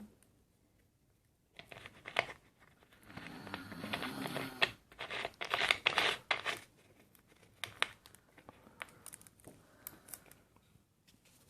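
Plastic Pepsi-Cola bottle being handled, the plastic crinkling and crackling with many sharp clicks for a few seconds. A few scattered clicks follow.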